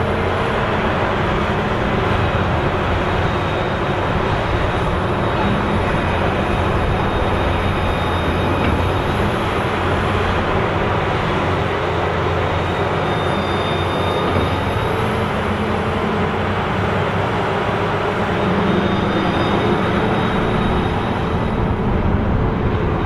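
Heavy diesel engines of a Claas Jaguar forage harvester and the wheel loader towing it, running steadily under load while they pull the harvester out of deep mud. A faint high whine rises and falls over the engine noise.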